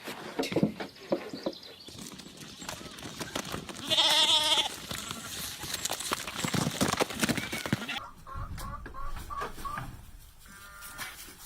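A farm animal gives one loud, quavering bleat about four seconds in, over a clatter of knocks and rustling. Near the end come a string of short, repeated higher calls.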